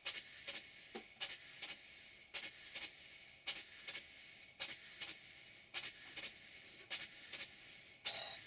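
Cotswold Heritage Vulcan model beam engine running slowly on compressed air, its exhaust giving soft hissing puffs in close pairs about once a second.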